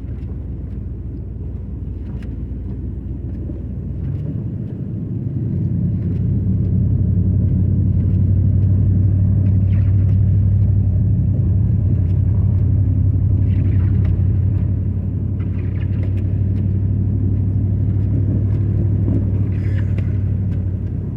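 A car's engine and road noise droning steadily while it drives, heard from inside the cabin. The low hum swells about five seconds in and dips briefly around fifteen seconds.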